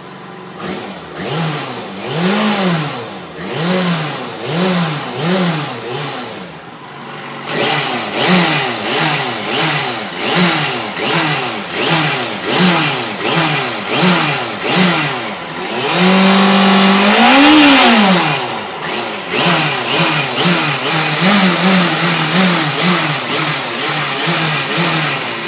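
Yamaha FZ6 S2's 600 cc inline-four engine being blipped over and over, about once a second. Each blip rises in pitch and falls back. About two-thirds of the way through there is one longer, higher rev, then quicker small blips. Under the revs there is a metallic noise that the owner is troubled by.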